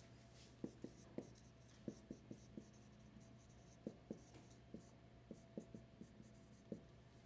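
Dry-erase marker writing on a whiteboard: faint, short strokes and taps as words are written, over a steady low hum.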